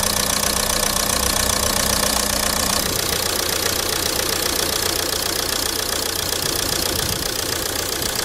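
Ford TDCi diesel engine idling with a steady clatter and a rough, shaking idle. A steady hum in the sound drops away about three seconds in while the engine runs on.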